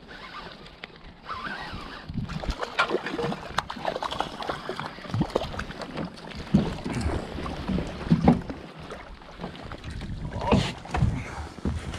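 Irregular knocks, thumps and handling noises on a small fishing boat as a hooked perch is brought in and unhooked, over a background of water and wind.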